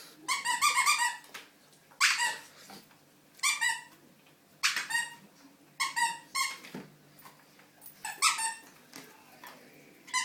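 Puppy chewing a squeaky toy, setting off short bursts of rapid high squeaks every second or two.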